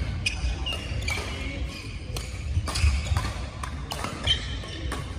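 Badminton doubles rally: rackets hitting the shuttlecock in sharp cracks, with shoes squeaking on the court mat and footsteps thudding.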